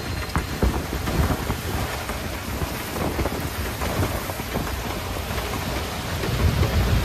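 Heavy rain pelting the canvas canopy of a moving auto-rickshaw and splashing on the flooded road, a dense hiss of countless drop ticks. A low rumble from the three-wheeler running through the water sits underneath and grows louder near the end.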